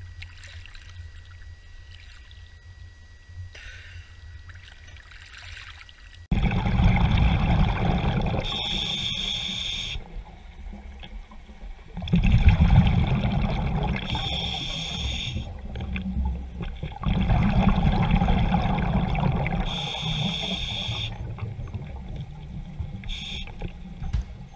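A quiet low rumble of water at the surface, then from about six seconds in, underwater sound through a scuba diver's camera. A scuba regulator breathes in a slow cycle: long bubbling rumbles of exhaled air alternate with shorter hissing inhalations, about every six seconds.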